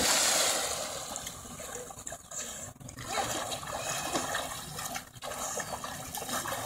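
Splash of a child plunging into lake water off a dock. The spray falls back and fades over the first second or so, followed by the lighter, uneven splashing of her swimming strokes.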